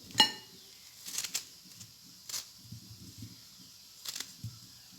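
Kitchen utensils clinking and tapping against a dish while a lemon is trimmed: one sharp ringing clink just after the start, then a few lighter clicks and taps.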